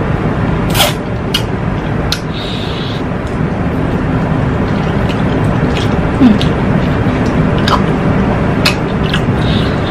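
Eating sounds of fried chicken wings pulled apart and chewed by hand: short, sharp wet clicks and smacks every second or so, over a steady low rumbling background noise.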